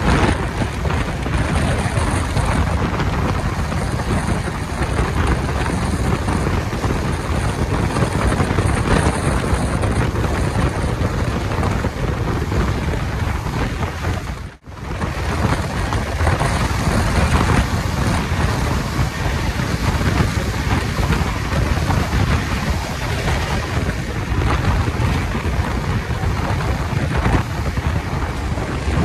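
Steady rushing noise of the Sealdah Duronto Express running at speed. It drops out for an instant about halfway through, then carries on unchanged.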